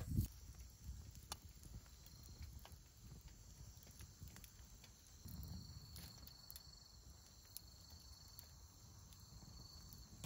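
Faint outdoor ambience: a low rumble with a few scattered small taps and clicks, and a faint steady high hum.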